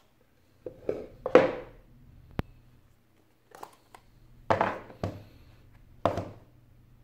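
Hands opening and handling a cardboard iPhone 8 Plus box: the lid sliding off and the box parts set down on the desk, heard as a series of short scuffs and rustles with one sharp click about two and a half seconds in.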